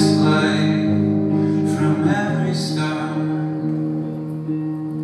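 Live band music: held keyboard chords and an electric guitar, with a male voice singing in the first couple of seconds and again briefly about two seconds in. The music softens toward the end.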